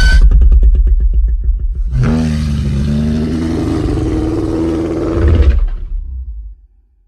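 Dragon creature sound effect: a rattling, rapidly pulsing growl for about two seconds, then a long, low, rasping roar lasting about four seconds that fades out near the end.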